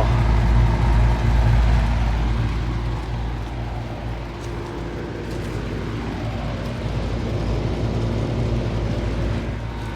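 A vintage 1980s Bard heat pump running in cool mode: a steady electrical hum from the compressor over the even rush of the condenser fan.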